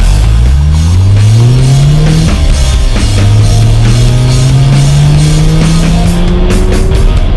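Loud rock music with drums, over a car engine accelerating: its pitch rises, drops once just after two seconds as at a gear change, then climbs again.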